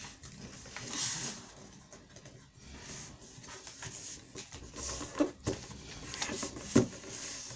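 A sheet of plain paper rustling and crinkling as it is folded and creased flat by hand against a tabletop, with a few sharper crackles about five to seven seconds in.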